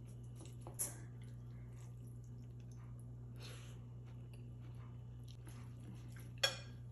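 Soft slurp of rice noodles being sucked up from curry soup around the middle, with a faint click about a second in and a sharp tap near the end, over a steady low hum.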